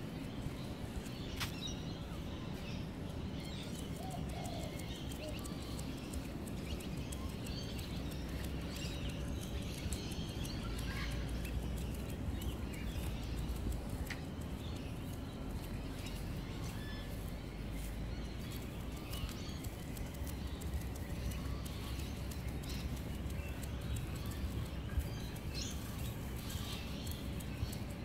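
Birds chirping, with scattered short calls over a steady low background noise.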